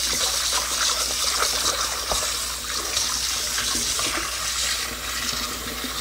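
Kitchen tap running steadily into a stainless steel sink while a plate is rinsed and rubbed by hand under the stream.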